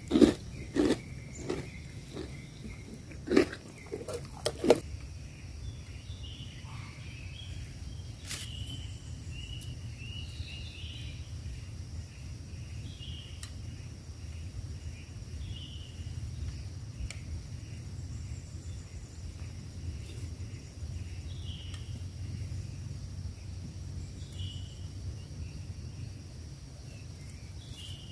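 Outdoor nature ambience: a few sharp, loud crunches in the first five seconds, then a steady low wind rumble with short high chirps every second or two.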